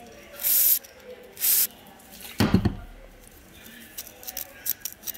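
Aerosol spray fired through a straw nozzle into an old fan's push-button switch: two short hisses, followed by a louder thump. Near the end come several small clicks as the switch's buttons are worked.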